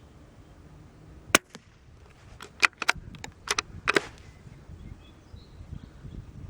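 A single sharp crack from a bolt-action .22 LR rifle (Brno Mod 5 / CZ 452) being fired, followed a second later by a quick run of metallic clicks as the bolt is lifted, drawn back and pushed home to eject the case and chamber the next round.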